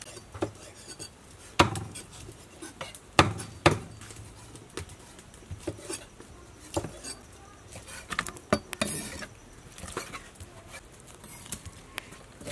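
A cleaver and a knife chopping boiled pork intestine on thick wooden chopping blocks: sharp knocks at irregular intervals, the loudest few in the first four seconds and lighter ones after.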